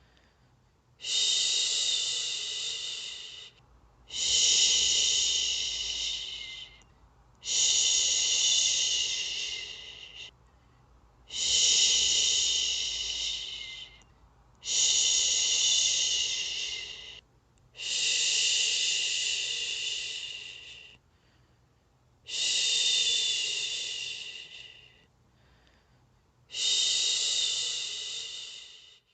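A person shushing "shhh" over and over to soothe a baby to sleep: eight long hisses, each starting suddenly and fading out, with short pauses for breath between them.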